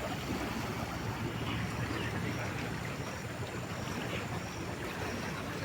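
Steady rushing of fast-flowing floodwater in a swollen river channel.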